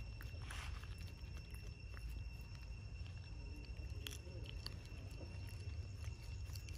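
Faint outdoor ambience: a steady high-pitched whine over a low rumble, with a few soft clicks and a faint wavering sound about four seconds in.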